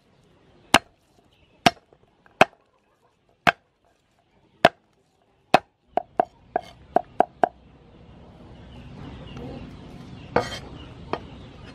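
Cleaver striking a wooden chopping board as peeled garlic cloves are chopped: single sharp knocks about a second apart, then a quicker run of six strokes around six to seven seconds in, and two more near the end.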